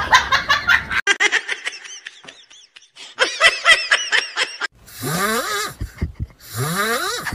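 Human laughter: rapid, repeated giggling bursts, followed after a short pause by a few longer vocal sounds that rise in pitch.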